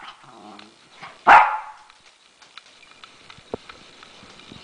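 A Havanese dog gives one sharp bark about a second in, barking on cue to count out the answer to a sum. Faint small clicks follow.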